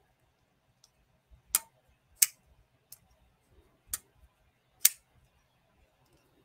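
Massdrop folding knife being flipped open and closed by hand. The blade snaps into place with five sharp clicks a second or less apart. The action is very smooth, which he guesses runs on washers.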